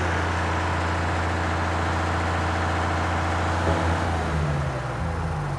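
Atkinson lorry's Gardner 150 six-cylinder diesel engine idling with a steady low note that changes and weakens about four seconds in.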